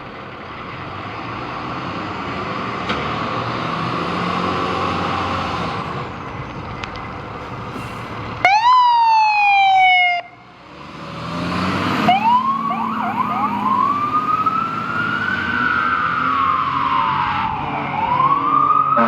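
2018 Spartan Metro Star / Fort Garry fire engine responding: engine noise builds, then a loud horn blast of under two seconds, its pitch sagging slightly, cuts off abruptly. A few quick siren chirps follow, then the siren winds into a slow wail that rises and falls.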